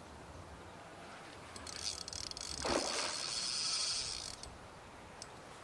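Fishing reel's clutch giving line to a hooked carp: a high, fast clicking buzz that starts about one and a half seconds in and runs for nearly three seconds.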